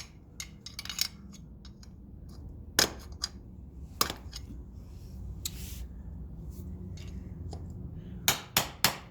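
Hammer tapping a pry bar against the metal teeth of a bolt's locking plate to bend them free, a few sharp metallic taps spaced out, then three quick taps near the end.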